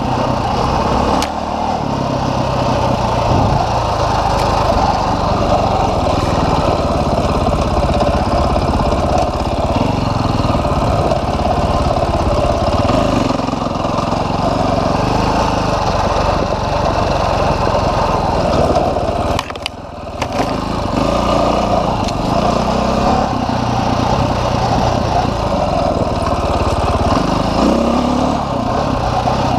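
Dirt bike engine running as the bike is ridden along a trail, its pitch rising and falling with the throttle, with a brief dip in loudness about two-thirds of the way through.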